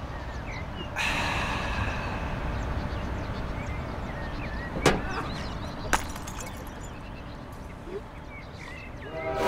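Small birds chirping over a steady outdoor noise that grows louder about a second in, with two sharp clicks about five and six seconds in. A gong-like musical tone swells in at the very end.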